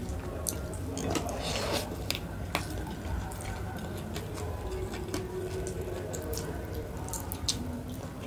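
Close-miked eating sounds of a person eating: wet chewing and mouth smacks with scattered sharp clicks.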